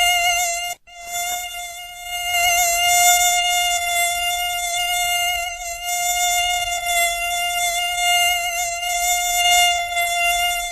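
Mosquito whine: a steady, high buzz of beating wings held at one pitch with a slight waver, broken by a brief gap a little under a second in.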